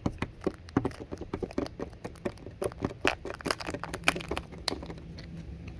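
A Kinder Surprise egg being opened by hand: a quick, irregular run of small crinkles and clicks from its wrapper and shell.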